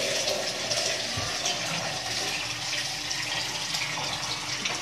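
Water pouring steadily from a jug into a large pot of thin yogurt and gram-flour batter.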